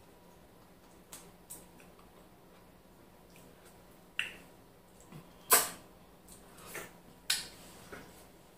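Eating sounds from a hand-eaten meal of ogbono soup and semolina: a few sharp, brief clicks and mouth smacks, the loudest about halfway through, over quiet room tone.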